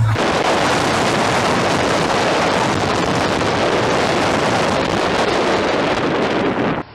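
Wind buffeting the microphone of a camera moving fast downhill behind a longboard, a steady loud rush of noise that cuts off suddenly near the end.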